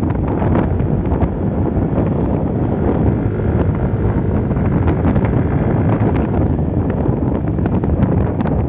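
Wind rushing over the microphone of a Yamaha Aerox V2 scooter riding at speed, with its engine and tyre noise underneath.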